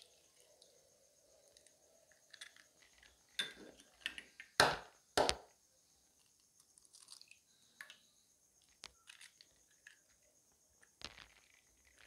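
Eggs being cracked and their shells pulled apart over a stainless steel bowl of batter: light shell crackles, with a few sharp cracks near the middle.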